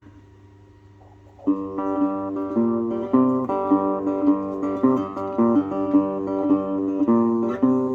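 Acoustic guitar strumming chords in a steady rhythm as a song's intro, coming in about a second and a half in after a quiet start.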